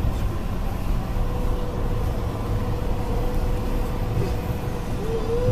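Steady low rumble of a moving passenger train car, heard from inside the coach. A faint thin tone runs through much of it and wavers near the end.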